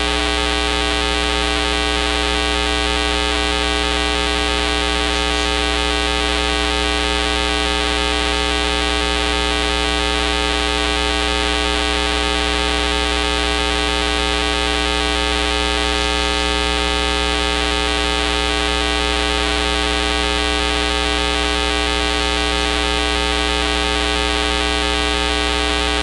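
A steady, unchanging electronic buzz with many overtones, holding the same pitch and level throughout.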